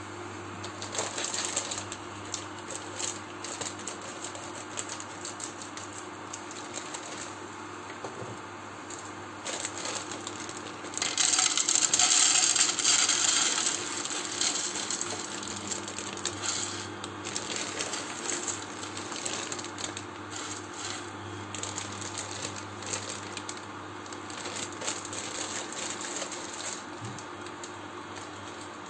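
Dry fusilli pasta poured from its bag into an empty nonstick frying pan, a dense rush of small hard pieces clattering for about three seconds a third of the way in, ahead of toasting the pasta dry. Before it the bag rustles and crackles, and afterwards scattered light clicks follow as the pasta settles and is moved in the pan, over a steady low hum.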